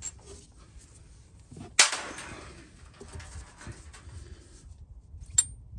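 Hand-tool work on the transmission cooler bypass block's 13 mm bolt: a sharp click about two seconds in, then faint clicks and scraping, and another sharp click near the end.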